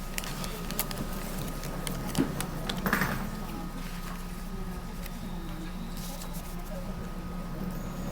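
Scattered small clicks and a brief rustle about three seconds in, from hands handling small plastic and wrapper pieces. Under them runs the steady hum of a train carriage standing at a platform.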